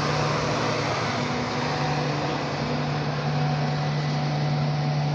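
Steady mechanical hum of trains at a station, with a low drone that holds one pitch throughout.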